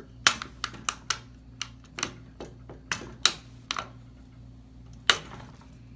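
Irregular sharp clicks and taps, about fifteen of them, as a screwdriver works a screw tight into a metal rail adapter on a dishwasher's upper rack.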